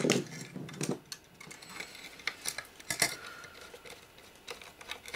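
Irregular light metallic clicks and taps as a small screwdriver and fingers handle a sheet-metal-cased circuit board module, the screwdriver being fitted to its small screws.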